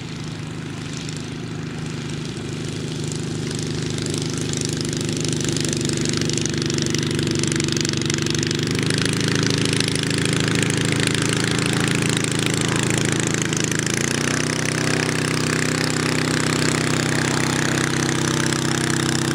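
Belite UltraCub ultralight's half-VW two-cylinder four-stroke engine running as the plane taxis on grass, growing louder over the first few seconds as it comes closer. The engine note shifts about halfway through and again near the end.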